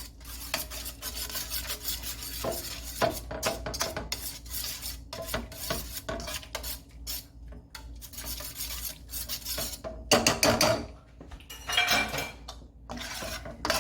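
A utensil stirring and scraping around a pan, whipping butter into a Marsala pan sauce with the heat off; irregular scrapes and clinks, louder about ten seconds in.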